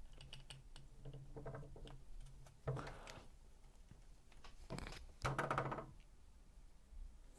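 Captains of Crush No. 2.5 torsion-spring hand gripper being squeezed, its spring squeaking in three short spurts, the longest and loudest about five seconds in, with faint ticks between them. The squeak persists despite silicone lubricant and is put down to friction between the spring coils.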